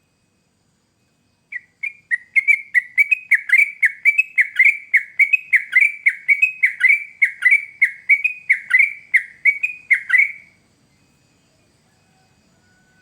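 Yellow-vented bulbul (trucukan) singing a rapid run of repeated short notes, about three a second, which ends about two seconds before the end.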